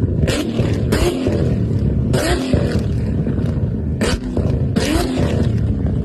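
High-performance car engine revved in repeated blips over a steady low rumble, with five short bursts of crackle from the exhaust.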